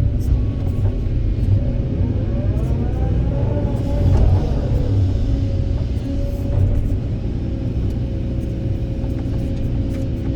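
Kobelco 200SK excavator's diesel engine and hydraulics working under load, a steady low rumble, with a whine that rises and falls in pitch about two to five seconds in.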